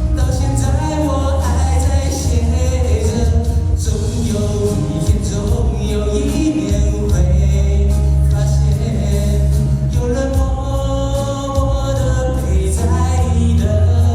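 Mandarin pop song performed live: music with a steady, strong bass and singing.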